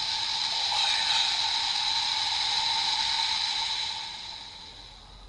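Kamen Rider Ryuki CSM belt toy playing a sound effect through its small speaker: a steady rushing hiss with two held tones, fading out near the end.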